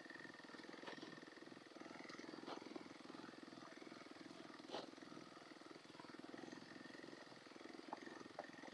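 Quad ATV engines running steadily at low speed while the quads crawl over a rocky trail, with a few scattered sharp knocks.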